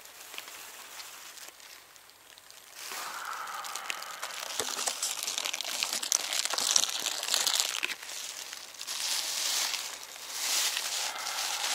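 Crisp crinkling and rustling as dry carp groundbait is handled in a plastic bucket, starting about three seconds in and going on in several spells.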